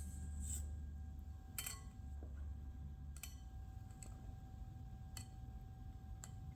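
A few light, sharp clicks, roughly one a second, of a kitchen utensil knocking against a mixing bowl as dough ingredients are mixed, over a low steady hum.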